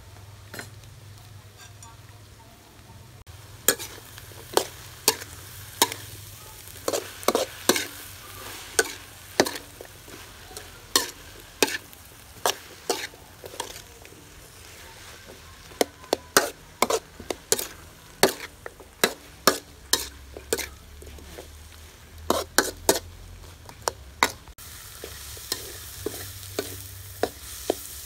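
Metal spatula scraping and knocking against a metal wok while pumpkin and egg are stir-fried, over the sizzle of frying. The knocks come irregularly, about one or two a second, starting a few seconds in; near the end they stop and a steady frying sizzle is left.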